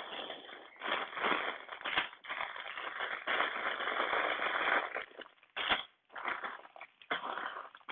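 Clear plastic bags of Lego pieces crinkling and crackling as they are handled and shifted about, with brief pauses about six and seven seconds in.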